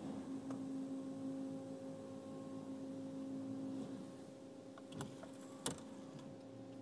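Steady electric motor hum of automatic car wash machinery, heard muffled from inside the car. The hum eases after about four seconds, and a few light ticks and a sharper click come near the end.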